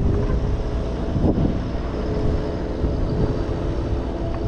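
A steady engine drone with a few held tones, over a strong low rumble of wind on the microphone.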